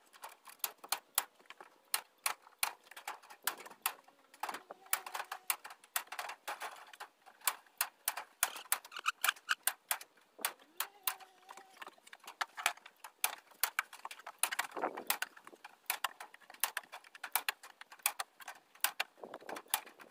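Hand staple gun snapping half-inch staples through hardware cloth into a wooden 1x2 frame, giving a string of sharp, irregular clicks about two a second.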